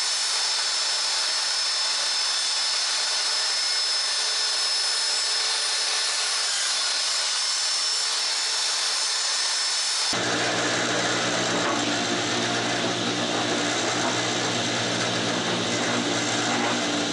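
Table saw running as a 3/4-inch board is fed through it, cutting a rabbet along its length. The sound is steady with a high whine, then changes abruptly about ten seconds in to a lower hum.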